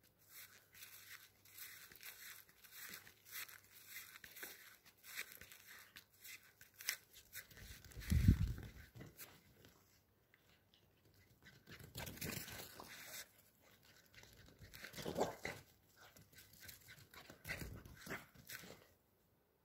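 Small dogs playing on grass, with dog sounds in between rustling and clicking noises. A loud low thump comes about eight seconds in, and shorter bursts follow later.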